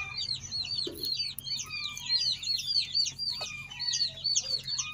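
A brood of silkie chicks peeping continuously: short, high peeps overlapping several times a second.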